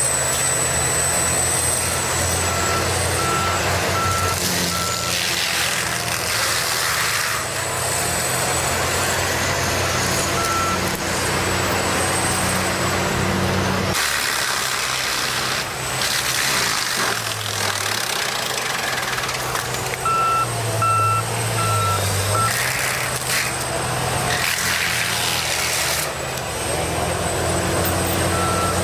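Heavy machinery engines running steadily, with a reversing alarm beeping in evenly spaced short beeps at intervals. The engine sound changes abruptly about halfway through.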